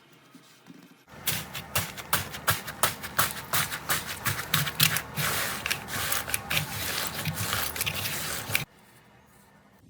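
Slime being squeezed and worked by hand, giving a dense run of crackling, popping clicks. It starts about a second in and cuts off abruptly near the end.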